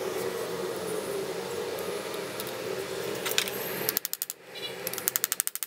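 Small metallic clicks from a brass pivot screw and nut being fitted into steel scissor blades: one click, then two quick runs of rapid ticking clicks in the last two seconds, over a steady hum that drops out when the clicking starts.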